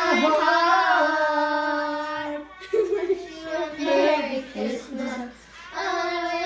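A child singing, holding a long note early on and pausing briefly twice between sung phrases.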